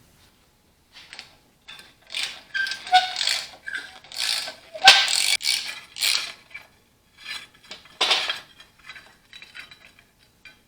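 Hand ratchet wrench clicking in a series of short, uneven bursts as bolts are worked loose on a tractor.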